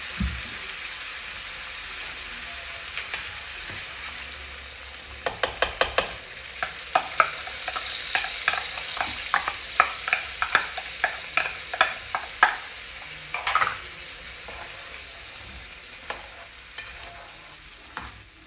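Fish curry in mustard sauce sizzling steadily in a non-stick frying pan. From about five to fourteen seconds in, a slotted spatula knocks and scrapes against the pan in a run of sharp clicks, about two a second, as the pieces are stirred and turned.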